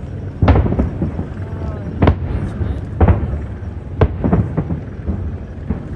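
Aerial fireworks shells bursting: about seven sharp bangs at irregular spacing, roughly one a second, each trailing off into a low rumble.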